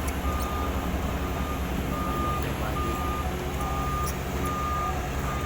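A heavy construction machine's diesel engine running steadily, with its backup or travel alarm beeping at one steady pitch about once a second.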